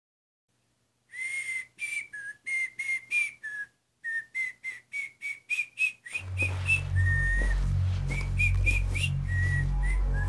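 A whistled tune in short, separate notes. About six seconds in, low, heavy music comes in under it and the whistling carries on over it, with some longer held notes.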